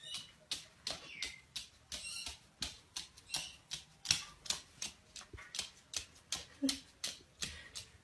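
A sheet of paper towel rustling and crinkling in quick, even strokes, about two or three a second, as a black-headed caique drags and flicks it across a hardwood floor.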